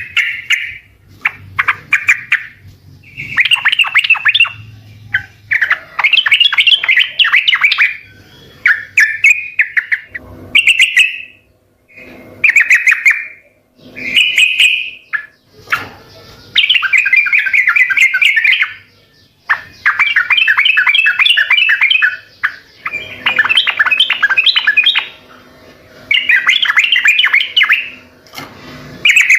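Yellow-vented bulbul (trucukan) singing loud, rapid chattering phrases, each about one to three seconds long, repeated with short pauses between them.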